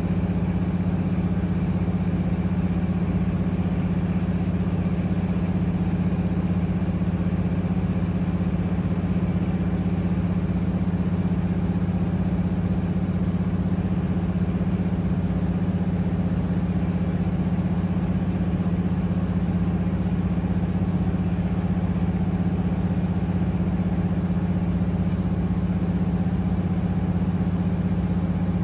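Single-engine floatplane's piston engine and propeller droning steadily, heard from inside the cabin, with a constant low hum that does not change pitch.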